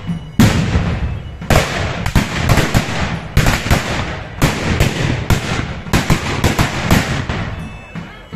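A ragged volley of black-powder muzzle-loading guns: about twenty sharp shots fired in quick, irregular succession, each with a short echo. The shots thin out near the end.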